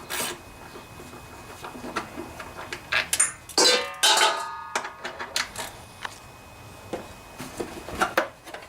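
Hand tools and metal engine parts clinking and knocking as the gas tank's mounting bolts are undone and the tank is worked off the engine. The loudest clatter, with a brief metallic ring, comes about three and a half to five seconds in.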